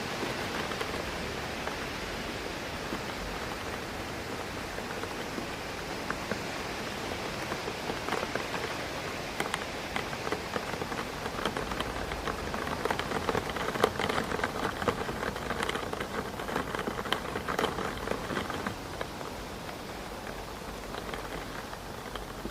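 Rain hitting a window pane, a steady hiss of rain with many small sharp drop ticks on the glass. The drops come harder and denser about halfway through, then ease off near the end.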